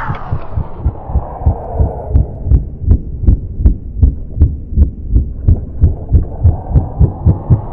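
Soundtrack music muffled down to its low end, leaving a deep heartbeat-like thumping about two or three times a second; near the end the thumps quicken and the full music begins to open back up.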